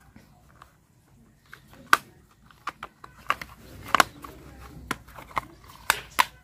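Hard plastic toy car parts being handled and fitted together: a scattered series of short, sharp plastic clicks and knocks, the loudest about two seconds and about four seconds in.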